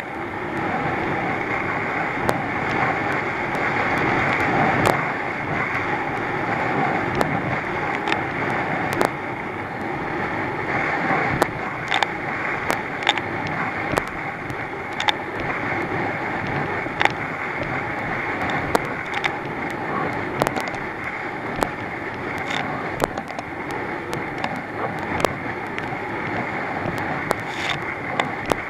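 Thundercat inflatable racing boat running at speed through swell: a steady rush of wind on the microphone mixed with engine and water noise, broken by frequent sharp ticks.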